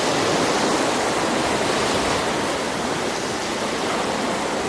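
Steady, even rush of fast-flowing storm floodwater.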